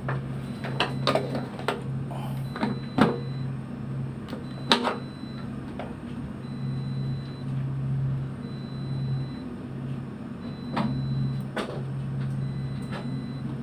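Steady low hum of a ship's engines and machinery, with irregular sharp knocks and clicks and a faint high-pitched beep repeating about every two seconds.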